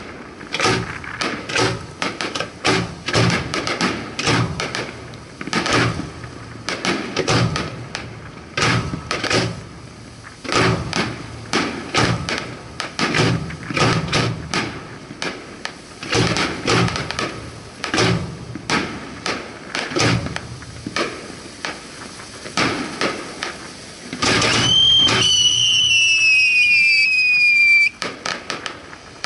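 Fireworks fired at close range from the launch barge: a dense, fast run of sharp bangs and crackles from shells leaving their mortars and bursting. About 24 s in, a whistling firework sounds loudly, its pitch sliding slowly down for about three and a half seconds before cutting off.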